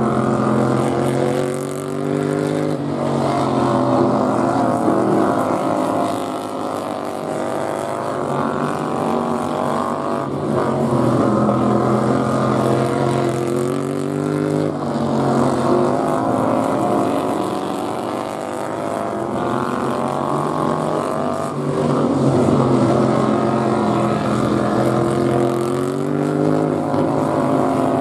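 Several supermodified racing lawn mower engines running hard around a dirt oval. Their overlapping engine notes rise and fall every few seconds as the mowers accelerate down the straights and back off into the turns.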